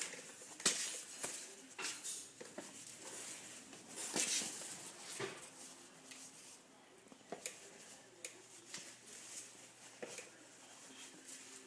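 Macaw chewing on a shoe and its laces: irregular small clicks and crunches from the beak, a few of them louder.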